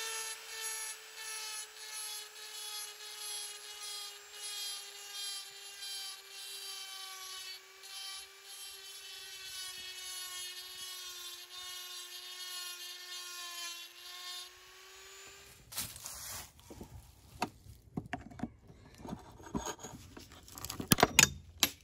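Handheld rotary multi-tool with a carbide cutting bit whining steadily as it grinds away the peened-over steel at the hatchet's handle end. Its pitch sags slightly and its loudness pulses as the bit is pressed in. It stops about 15 seconds in, and then come scattered clicks and scraping, with a few sharp metal knocks near the end as a screwdriver pries at the handle.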